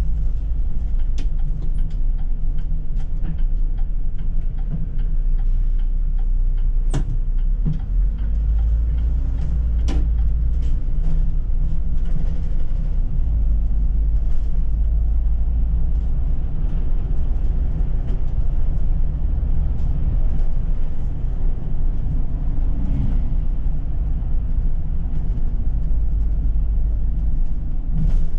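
City bus driving, heard from inside the cabin: a steady low engine and road rumble, with a few sharp clicks and rattles, the clearest about 7 and 10 seconds in.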